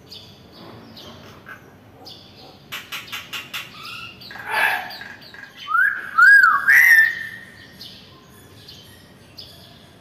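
Hill myna calling: a quick run of about six clicks, a harsh squawk, then two rising-and-falling whistles and a long held whistle, with fainter chirps behind.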